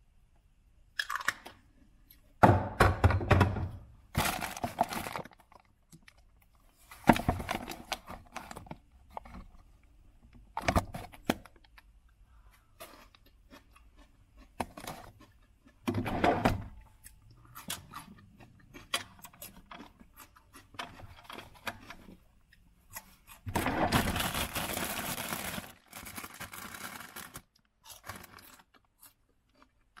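Irregular crunching bites and chewing of raw vegetables, mixed with handling noises of food being taken out: knocks of jars and containers and rustling of plastic bags.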